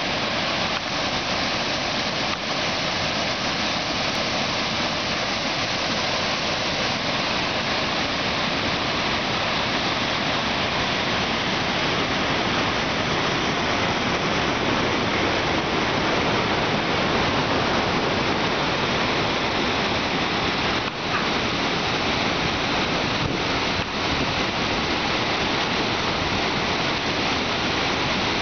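River floodwater pouring over the crest of a weir and churning into white water below: a steady, unbroken rush of falling water. The river is in heavy flood, with a release of about 75,000 cusecs running over the weir.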